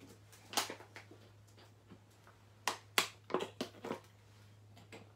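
A few short, sharp clicks and rustles, about six of them, spread through the pause over a faint steady low hum.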